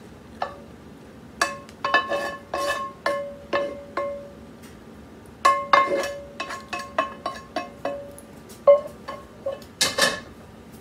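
Stainless steel bowl ringing as a spatula knocks and scrapes meat out of it: a run of irregular metallic taps, each with a short bell-like ring at the same pitch, with one louder knock near the end.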